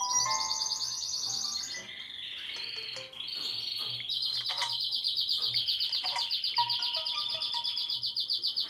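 Samsung Galaxy S3 nature-themed ringtone: fast, chirping birdsong-like trills with a few soft musical tones beneath. The trill turns louder and more even about four seconds in.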